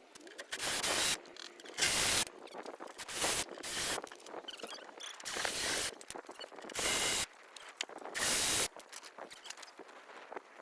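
Socket wrench with an 8 mm socket working the screws that hold a 2014 Ford Escape headlight: short bursts of rapid ratchet clicking, about seven strokes of half a second each, with small ticks between them.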